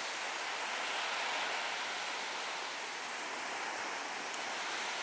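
Ocean surf washing steadily onto the beach.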